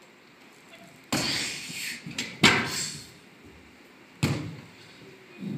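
Three heavy bangs from physical stage action. The first is about a second in and the last about three seconds later, and each dies away quickly.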